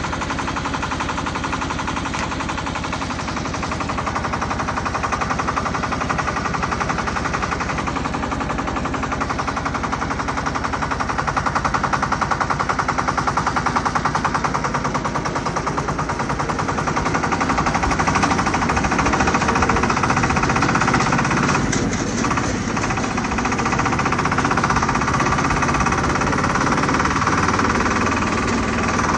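Shifeng mini-tractor's diesel engine running while the tractor drives along, a fast, even clatter of firing strokes that grows somewhat louder as it picks up speed.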